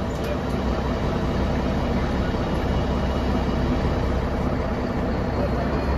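The rear-mounted engine of a 1999 Mercedes-Benz O405NH bus running steadily, heard from inside the passenger cabin as an even low drone.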